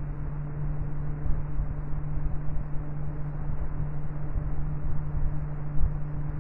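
Noctua 140 mm PC cooling fan running at steady speed, recorded up close: an even rush of air over a steady low hum.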